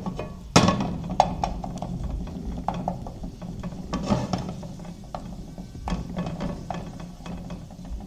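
Wooden spatula knocking and scraping against a non-stick frying pan as chopped garlic is stirred in hot oil, with the garlic sizzling. A sharp knock comes about half a second in, then irregular clicks and taps follow.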